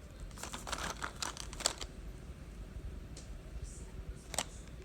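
Spark plug and plug wire packaging handled: a quick run of light clicks and crinkles in the first two seconds, then a single sharp click about four and a half seconds in.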